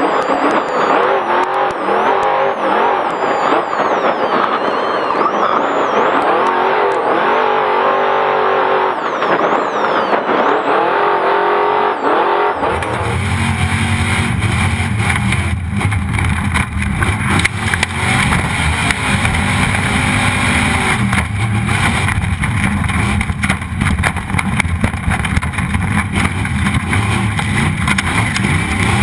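Race truck engine revving up and down hard as the truck is driven at race pace. About twelve seconds in, the sound switches abruptly to a steadier, heavier roar of engine and rumble.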